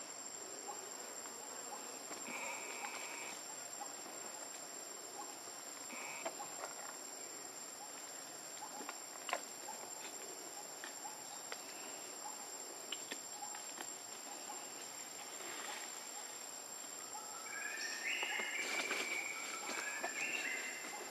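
Outdoor ambience with a steady high insect drone over a soft hiss. A few short, flat-pitched calls from an unseen animal come about two and six seconds in, and a quicker, louder run of them near the end. A single sharp click sounds about nine seconds in.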